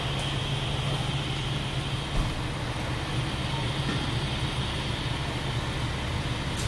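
Steady low rumble of street background noise, like traffic, with a single brief knock about two seconds in.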